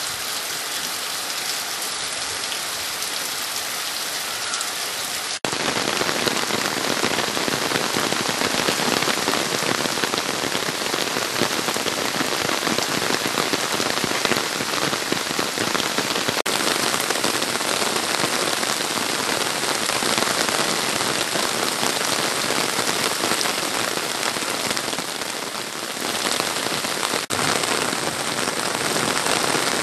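Heavy rain falling steadily, a dense hiss of drops on leaves and wet ground. It gets louder and fuller at a cut about five seconds in, with a short dip and jump near the end.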